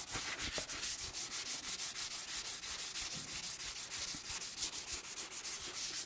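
Korean exfoliating scrub towel (ttaemiri towel) rubbed in quick, even back-and-forth strokes, a steady scratchy scrubbing.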